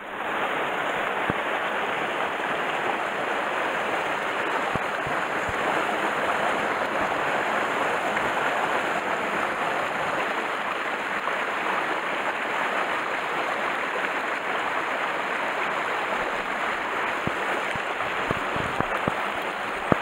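Mountain stream running steadily over rocks and small cascades, a constant rush of water.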